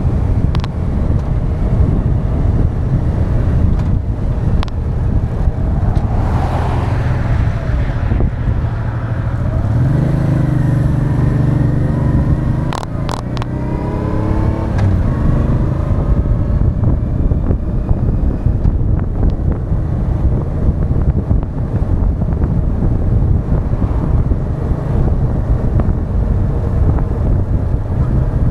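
Heavy wind rush on a front-mounted action camera's microphone on a moving Honda Deauville 650, with the bike's V-twin engine underneath. Through the middle the engine note rises in pitch twice, with a few sharp clicks between the two rises.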